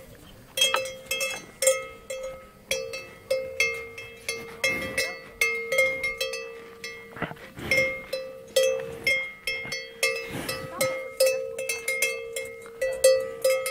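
Cowbell on a grazing cow's collar clanking irregularly, about two strikes a second, each ringing on briefly as the cow's head moves.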